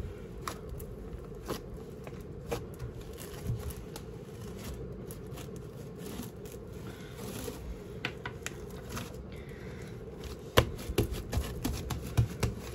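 Light handling noises on a tabletop: scattered small clicks, taps and scrapes, with one sharper knock about ten and a half seconds in and a cluster of taps after it.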